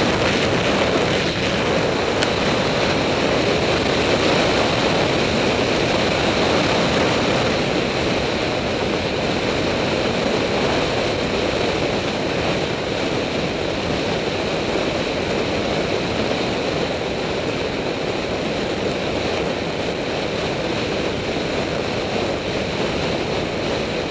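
Steady rush of wind buffeting the microphone of a bicycle-mounted camera on a fast downhill descent, easing slightly toward the end.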